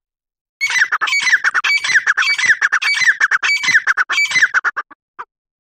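Grey francolin calling: a loud, rapid run of harsh notes lasting about four seconds, with a falling note about twice a second. One short extra note follows near the end.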